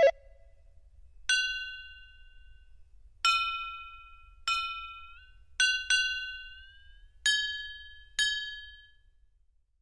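Built-in sound effect on a Casio CT-X9000 keyboard: seven glassy, clinking struck notes, each ringing out and fading over about a second and a half, played at uneven intervals, two of them close together in the middle.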